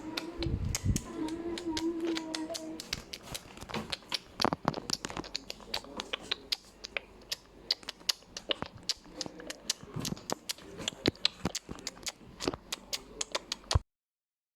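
Irregular sharp clicks and taps, a few to several a second, of unknown source. A steady low hum sounds over them for the first few seconds, and everything cuts off abruptly near the end.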